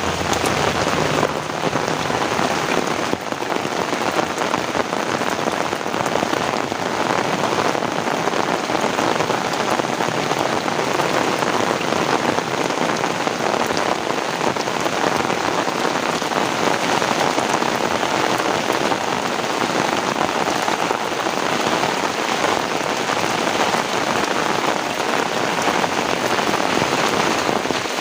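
Heavy rain falling steadily, a dense, even hiss of pattering drops with no break.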